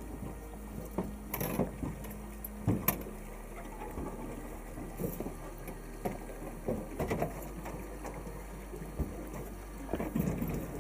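Scattered knocks and bumps against a drift boat's hull and gear, over a steady low rumble of river water and wind. The louder knocks come about one and a half and three seconds in, with a cluster near the end.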